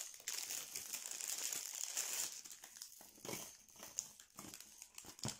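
Clear plastic packaging bags crinkling as they are handled and unwrapped by hand. The crinkling is steady for about the first two seconds, then comes in scattered crackles.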